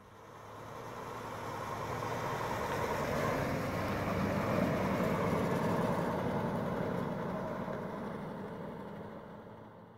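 1970 Ford F-250 pickup driving past: its engine and tyres grow louder as it approaches, are loudest about four to five seconds in as it passes, then fade as it drives away.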